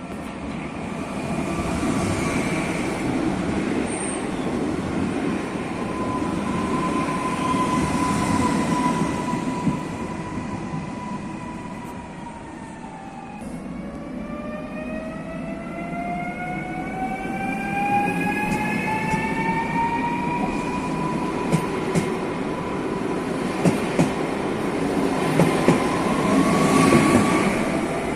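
Train at a station: a steady rumble with a motor whine that slowly drops in pitch, breaks off about halfway, then starts lower and climbs steadily as the train picks up speed. Several sharp clicks from the wheels and track come in the second half.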